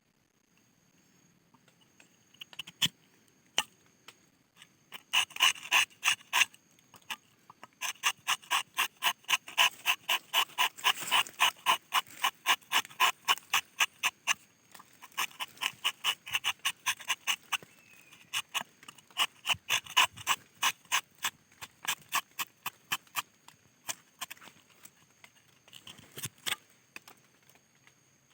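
Tapping knife cutting into the bark of a rubber tree: quick scraping strokes, about three to four a second, in runs with short pauses between.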